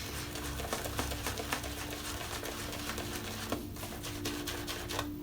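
Shaving brush working soap lather on the face: a soft, irregular wet crackle of bristles, over a steady low hum.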